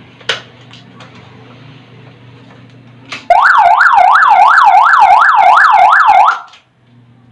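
A homemade motorcycle alarm's 12 V siren sounds a loud, rapid warble, sweeping up and down about three times a second for about three seconds, then cuts off suddenly; it is set off by shifting the motorcycle's transmission into neutral. A single sharp click comes near the start, before the siren.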